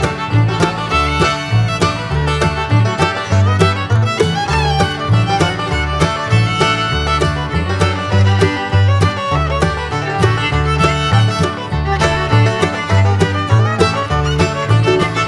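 Background music: an upbeat bluegrass-style tune with fiddle over a steady bass beat.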